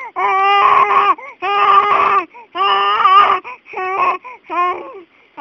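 A baby's loud vocalizing: about five drawn-out, high-pitched, cry-like calls of roughly a second each, with short breaks between them.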